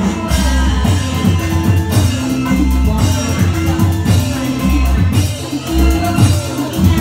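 Loud amplified music played over loudspeakers, with a steady drum beat, held notes and a singing voice.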